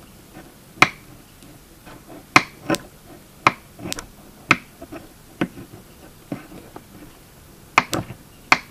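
Spark plug snapping as sparks jump its gap, fired by a 12-volt CDI ignition unit and spark coil: about ten sharp snaps at irregular intervals.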